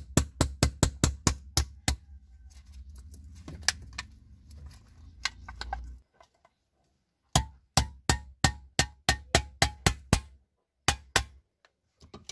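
Pliers tapping a nail through the thin aluminium top of a drink can to punch holes: sharp metallic taps about five a second, in two runs with a pause of a few seconds between them.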